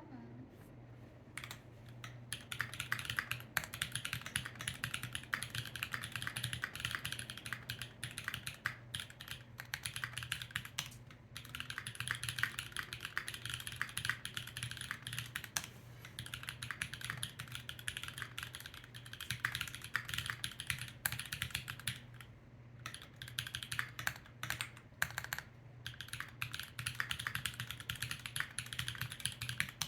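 Typing on a Sangeo65 custom mechanical keyboard with stock JWK SOTC switches, GMK Umbra keycaps and an aluminium plate: rapid keystrokes. The typing starts about two seconds in and runs with a few short pauses.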